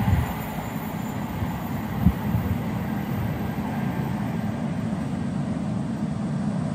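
Low, steady rumble of a train running past on the main line, with a sharp thump about two seconds in.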